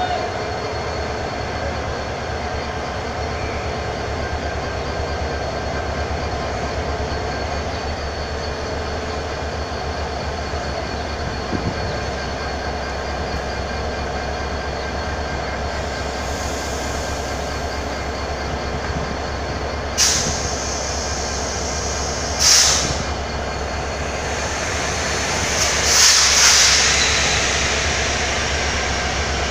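EMD GT42ACL diesel-electric locomotive running with a steady engine drone as it pulls slowly away with its train. In the second half, three sudden bursts of high-pitched noise come over the engine, the last one longer and the loudest.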